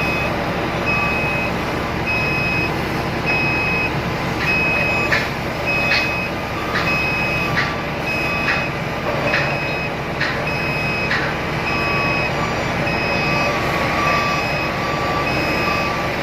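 Hydraulic excavator's diesel engine running steadily under a high-pitched travel/warning alarm that beeps about once a second. Through the middle of the stretch there is a run of short knocks, roughly one a second.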